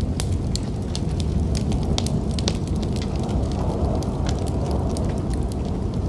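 Wood fire crackling, with frequent sharp pops and snaps, over a steady low rumble of snowstorm wind.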